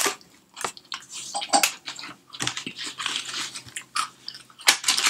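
A person chewing a crunchy cream-filled biscuit close to the microphone, in irregular crunching bites with short pauses.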